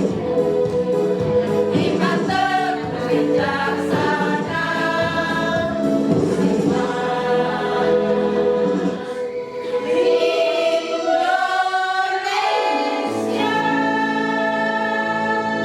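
A choir singing a devotional song in several voices, with held notes changing every second or so. Near the end the voices slide and then settle into one long sustained chord.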